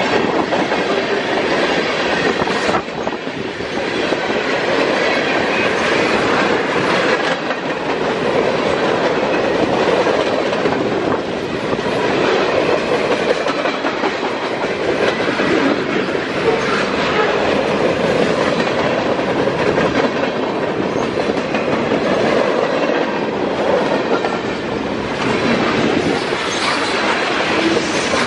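Canadian National freight train cars, tank cars and lumber-loaded flatcars, rolling past close by. Their steel wheels clack over the rail joints under a steady rolling rumble.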